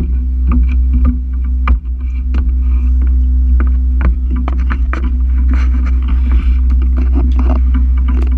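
Boat engine running with a steady low drone, with frequent sharp clicks and knocks over it.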